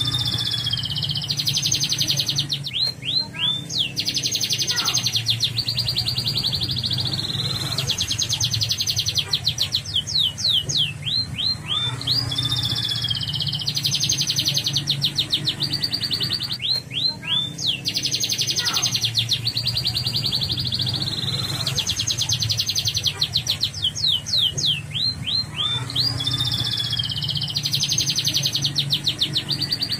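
Yellow domestic canary singing: runs of quick sweeping whistled notes, each followed by a long, fast trill, with the phrase repeated several times.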